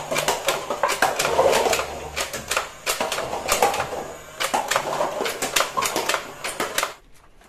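Toy foam-dart blaster with a drum magazine firing a string of darts, each shot a sharp click, with darts striking and knocking down stacked paper cups; the shooting stops about seven seconds in.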